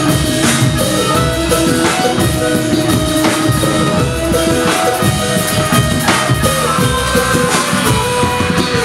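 A live band playing funk: drum kit, electric guitars and keyboard, with held keyboard and guitar notes over a steady drum beat.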